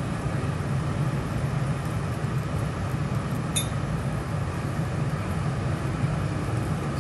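Steady hiss and hum of a teppanyaki griddle station: lobster halves sizzling on the hot steel plate under a running extractor hood. A single light metallic clink of a utensil about three and a half seconds in.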